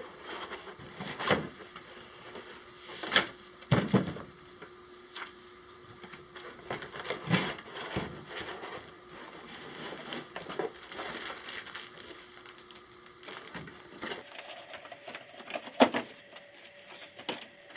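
Irregular clicks, knocks and rustles of a toy kit's box and packaging being handled and opened.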